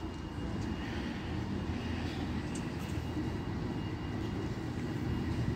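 Diesel passenger train's engine giving a low, steady rumble as the train approaches the level crossing.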